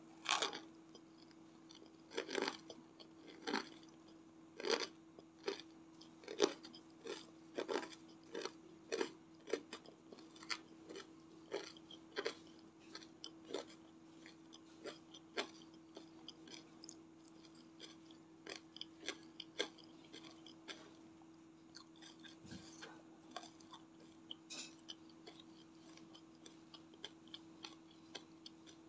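Close-miked chewing of crispy fried Indonesian snacks (gorengan): sharp crunches about twice a second, growing fainter and sparser over the last ten seconds or so.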